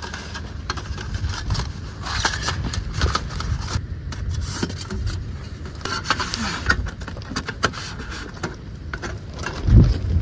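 Wind rumbling on the microphone, with scraping, rubbing and many light clicks as a thin folding metal panel and other gear are handled.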